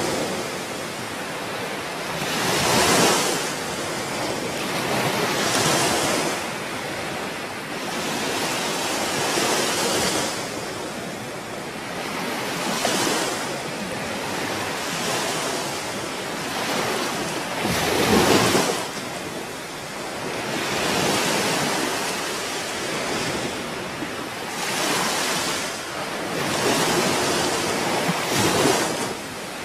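Surf washing on a shore, mixed with wind buffeting the microphone. It swells and fades every few seconds, with the biggest surge about two-thirds of the way through.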